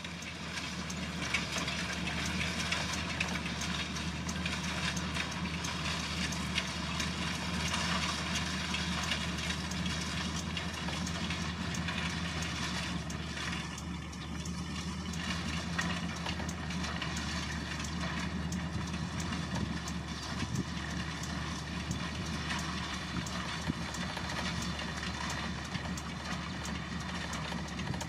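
A horse-drawn hay loader clattering steadily as it lifts hay onto the wagon. A steady low engine hum, like an idling motor, runs underneath.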